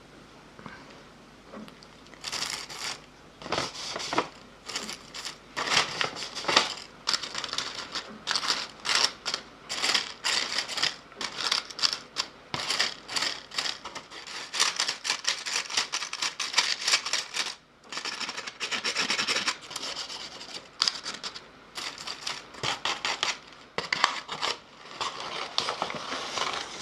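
Quick, irregular scratchy rubbing strokes, starting about two seconds in and repeating with short pauses.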